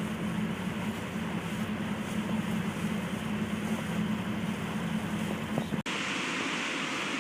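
Waterfall rushing in a steady, dense wash of noise. It cuts out for an instant just before the end and comes back brighter and hissier, with less low rumble.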